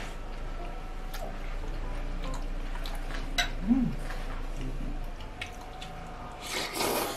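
Close-up eating sounds: wet mouth clicks and smacks of chewing, a short hum in the middle, then a loud slurp of spicy konjac noodles near the end.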